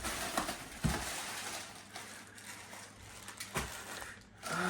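Plastic packaging rustling and crinkling as items are handled and unwrapped, with a few soft knocks. A steady low hum starts near the end.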